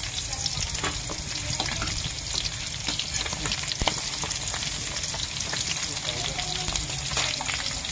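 Milkfish and milkfish intestines frying in hot oil in a wok, a steady sizzle, with a metal spatula scraping and clicking against the pan several times.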